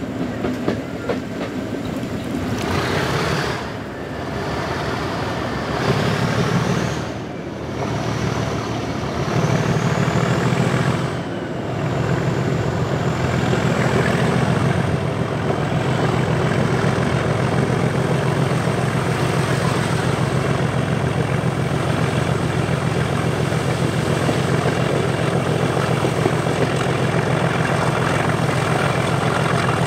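Class 37 diesel locomotive's English Electric V12 engine working hard under power ("thrash"), heard from the train it is hauling. A high whistle climbs in pitch over the first fifteen seconds and then holds steady, and the sound dips briefly three times early on before settling into a steady pull.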